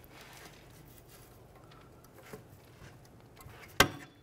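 Faint handling noise of a plastic panel tool working a parking brake cable off its mounting hook, with a small tick partway through and one sharp click near the end.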